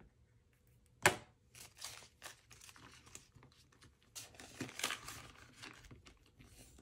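Crinkling and rustling of plastic cash envelopes and paper bills being handled, with a sharp click about a second in.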